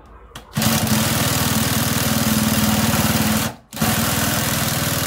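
Cordless drill driving a Mundi reciprocating-saw adapter, its blade sawing metal with a fast, even stroke buzz. It starts about half a second in, stops for a moment a little past the middle, then runs again.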